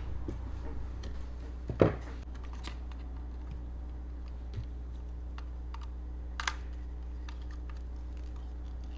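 Small clicks and taps of hands handling wires, a plastic controller housing and a screwdriver on screw terminals during electrical wiring, with a louder click just before 2 s and another about 6.5 s in.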